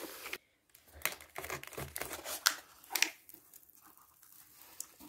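Cardboard mailer being torn open by hand: the paper tear strip ripped along the cardboard and the flaps pulled back, a run of sharp tearing, crinkling and snapping that is busiest in the first three seconds, then lighter rustling as the contents are uncovered.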